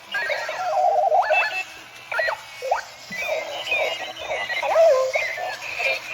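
Electronic alarm clock going off: a jumble of chirping, warbling electronic tones that slide and jump up and down in pitch, in uneven bursts.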